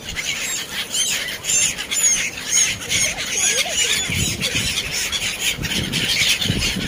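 A flock of black-headed gulls calling, many short harsh squawks overlapping one another.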